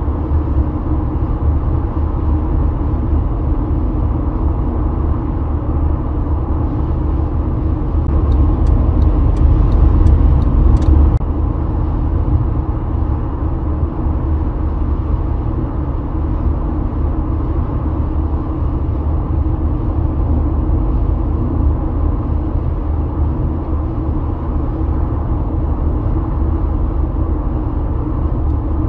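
Steady low road and tyre rumble of a car driving at highway speed, heard from inside the car. About a third of the way in it swells for a few seconds, with a few faint ticks.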